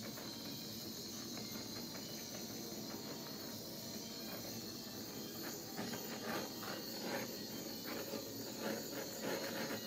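A steady hiss, with small soft wet taps and squelches from about five seconds on as a wooden coaster is dipped and pressed into wet acrylic paint.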